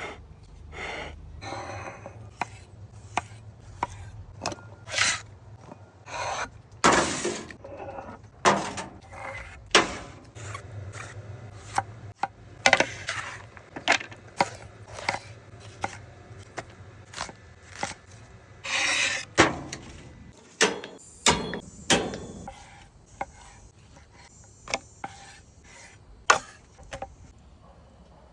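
Knife chopping food on a wooden cutting board in irregular strokes, with a few longer scrapes now and then.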